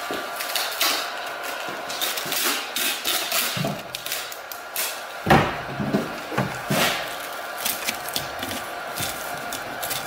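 Aluminium foil tape crinkling and crackling as it is handled and smoothed down by hand, in irregular crackles, with a louder knock about five seconds in.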